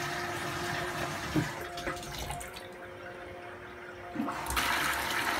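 Tap water from a push-button-operated solenoid valve gushing out of a copper spout into a plastic bucket. The flow runs for about two and a half seconds, eases off, then comes on louder again near the end.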